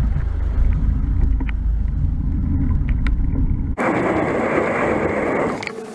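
Wind buffeting and road rumble on a moving bicycle's handlebar camera microphone, with a few faint ticks. About four seconds in it switches abruptly to an even hiss without the low rumble.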